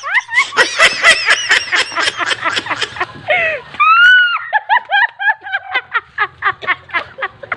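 Several people laughing hard in quick, repeated ha-ha peals, with a short high-pitched squeal about four seconds in.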